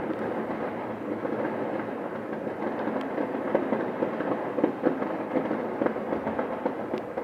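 A fireworks display going off without pause: a dense crackle of many overlapping bangs, with sharper single cracks about three seconds in and again near the end.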